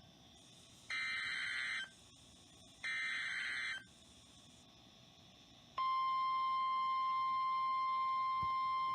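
NOAA Weather Radio Emergency Alert System header: two short warbling bursts of SAME data tones, each about a second long. Then, about six seconds in, the steady 1050 Hz warning alarm tone begins, announcing a flash flood warning.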